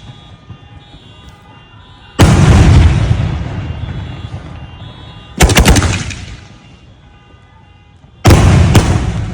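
Demonic Corona firework salutes going off: three loud bangs about three seconds apart, each trailing a long rolling echo, the last two with quick extra cracks just after the main report.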